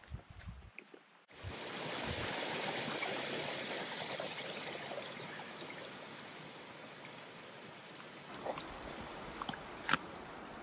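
A small forest creek splashing and running over mossy rocks, a steady rush that cuts in suddenly about a second in and slowly eases off. A few soft thumps come before it, and a few faint clicks near the end.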